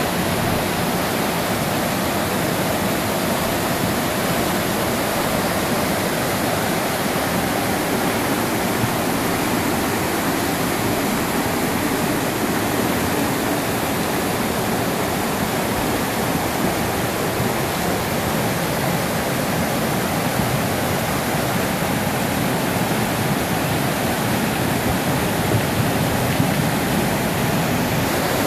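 Muddy floodwater rushing in a steady, unbroken wash of water noise: a flooding torrent spreading across a road.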